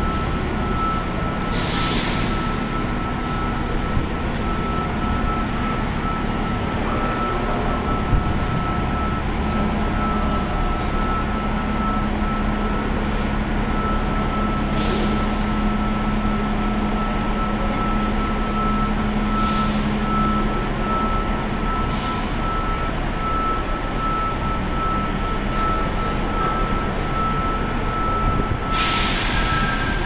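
Diesel coach bus running and moving off slowly, its engine a steady rumble, with short hisses of released air from the air brakes several times, the longest near the end. A thin, steady high-pitched tone runs underneath throughout.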